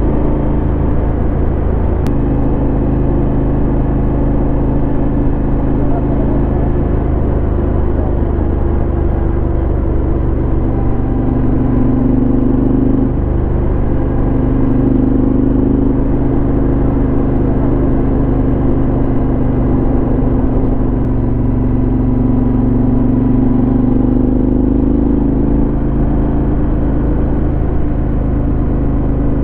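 Yamaha XT1200Z Super Ténéré's 1200 cc parallel-twin engine running through a LeoVince SBK aftermarket exhaust while being ridden, a steady exhaust note whose pitch rises and falls a little as the throttle changes.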